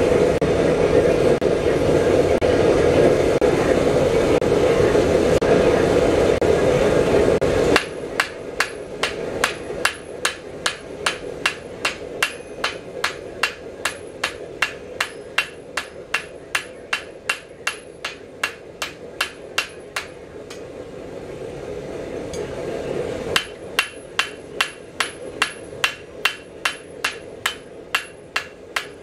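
A loud steady rushing noise. About eight seconds in it gives way to a blacksmith's hand hammer striking red-hot square steel bar on an anvil, at about two to three blows a second, each blow with a short high anvil ring. The hammering pauses for about three seconds a little past the two-thirds mark, then resumes.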